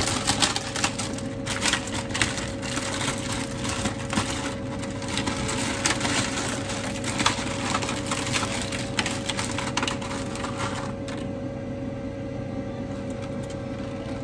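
A plastic instant-noodle packet crinkling and crackling as it is handled and the dry noodles are broken and tipped out. The crackling stops about eleven seconds in, leaving a steady low hum.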